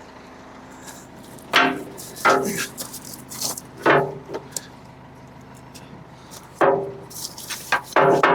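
Metal clanks, five in all, each ringing briefly, from steel being knocked on the backhoe's bucket linkage as the bucket pins are worked loose, over a faint steady hum.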